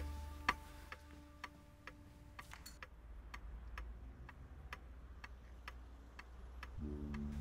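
Pendulum shelf clock ticking steadily, about two ticks a second, over a low steady hum. Sustained music fades out at the start and comes back near the end.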